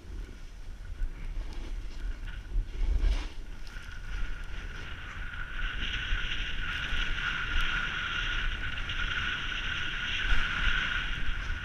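Snow hissing and scraping under a rider sliding downhill through the trees, with wind rumbling on the action camera's microphone. The hiss grows louder from about four seconds in and stays steady after that.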